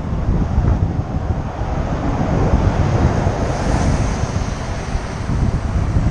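Wind buffeting the microphone of a moving bicycle, with a city bus passing close alongside: its engine and tyre noise swells about two to four seconds in and fades as it pulls ahead.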